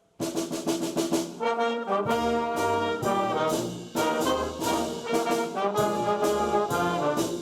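School band with brass playing a short musical passage. It comes in suddenly with a few short repeated chords, then moves on to held notes over a low bass line.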